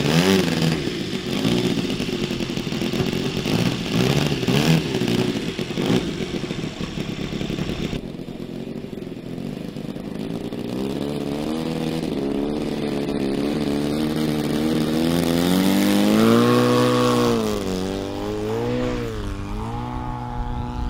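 RC model airplane engine and propeller running: a buzzing note close up at first, then rising and falling in pitch several times over the second half as it is throttled up for the take-off run.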